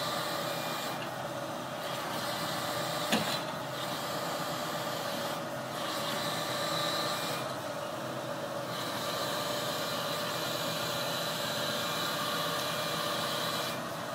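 Boom truck engine and hydraulic crane running steadily as the crane lifts and swings a pallet of cedar decking, a steady mechanical drone with a faint whine. A single sharp click about three seconds in.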